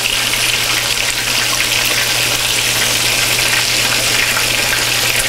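Buttermilk-battered chicken pieces frying in hot oil in cast iron skillets: a steady, loud sizzle.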